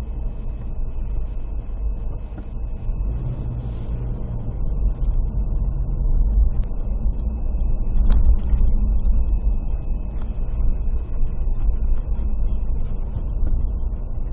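Steady low rumble of a vehicle on the move, with a faint high steady whine running under it for much of the time and a couple of faint clicks.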